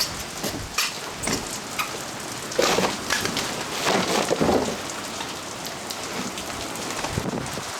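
Heavy storm rain pouring steadily, with scattered sharp hits of hail or large drops and two louder surges about two and a half and four seconds in.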